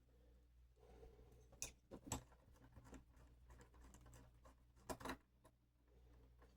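Faint clicks and scratches of small metal lock parts and tools being handled as a pin-tumbler lock is taken apart, with a few sharper clicks about two seconds in and again about five seconds in.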